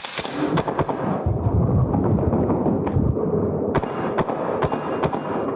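Airsoft rifle firing a string of shots at targets, the first right at the start and a quicker run of about three shots a second in the second half, over a dense background noise.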